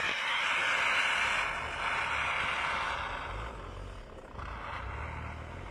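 Pickup truck's engine running low while its tyres spin and churn through deep snow, with a hissing spray of snow that fades after about three seconds.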